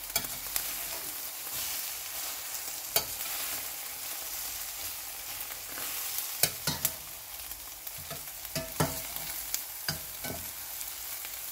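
Eggs frying in a stainless steel pan with a steady sizzle. A spatula scrapes through the eggs and knocks against the pan now and then, about ten sharp clacks, some with a short metallic ring.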